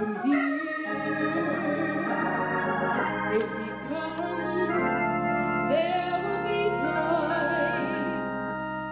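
Hammond organ playing sustained chords that shift to new chords every second or so.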